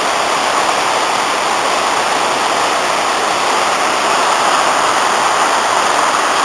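Waterfall on a mountain river in spate, a steady rushing roar of heavy water pouring down.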